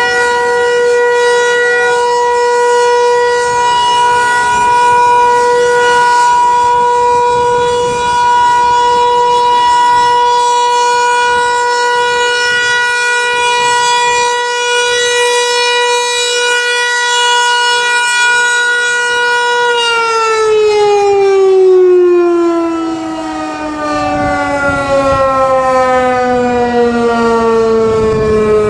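Federal Signal 508-128 outdoor warning siren sounding its steady alert tone on one held pitch; about two-thirds of the way through it cuts off and winds down, the pitch sliding steadily lower as the rotor slows.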